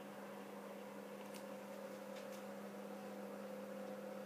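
Steady electrical hum with a higher tone above it over faint hiss, and a few faint clicks about halfway through.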